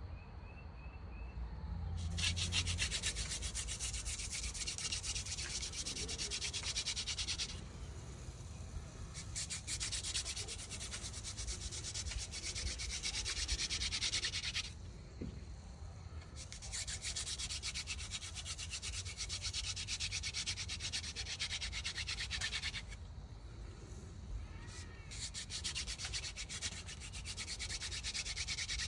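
Hand-drill fire by friction: a wooden spindle spun back and forth between the palms grinds into a wooden hearth board, working up hot wood dust toward an ember. It makes a dry, rapid rasping in four bouts of several seconds each, with short breaks between them.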